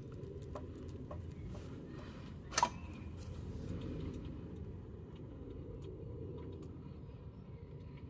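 Cooking on a Trangia camp stove: scattered crackles and clicks over a steady low rumble, with one sharp click about two and a half seconds in. The crackling thins out after about four seconds.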